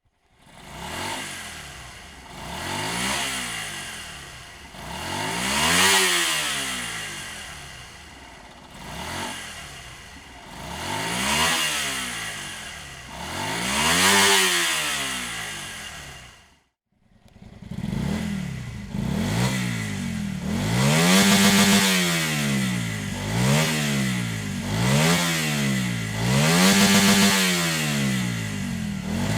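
Honda Varadero 125's small V-twin engine revved repeatedly through its exhaust: first about five slow rises and falls in revs, then after a brief break, louder, quicker blips of the throttle about once a second.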